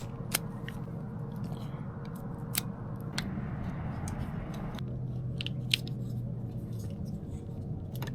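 Scattered small sharp clicks and rattles of AA batteries being fitted into the keyless deadbolt's plastic battery holder, over a faint low hum.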